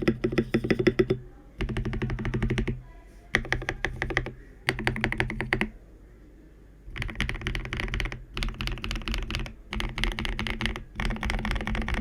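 Typing on an Akko 3098B mechanical keyboard fitted with KTT Strawberry linear switches: bursts of rapid keystroke clacks about a second long, broken by short pauses and one longer pause midway.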